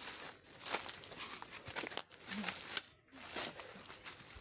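Irregular close rustling and crinkling, with a few short crackles.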